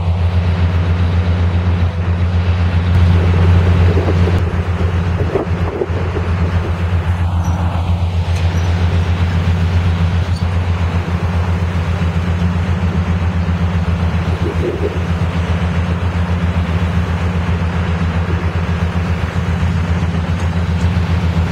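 Steady low engine drone of heavy road vehicles in street traffic, with a constant even rumble throughout.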